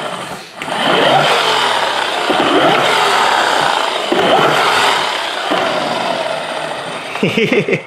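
Blue toy Ford F-150 pickup truck pushed along a wood floor and let go to roll, making a steady engine-like whirring noise for about six seconds.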